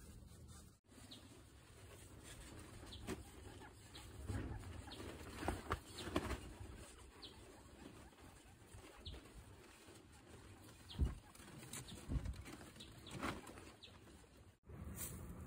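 Guinea pigs munching fresh grass: faint, irregular crunchy chewing and tearing of the blades, with soft rustling.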